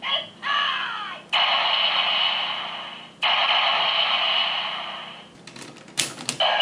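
Tinny small speaker of an electronic Kyoryuger toy playing its Beast Battery sounds: a short voiced call, then two long hissing effects that fade away, followed by a few sharp clicks near the end.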